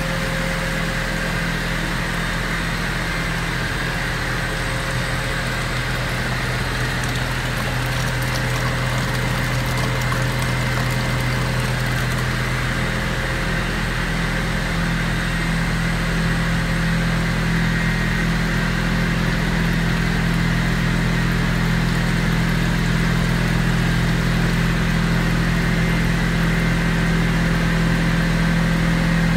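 Volute sludge screw press dewatering unit running: a steady electric drive and mixer hum with a low drone, growing slightly louder over the second half.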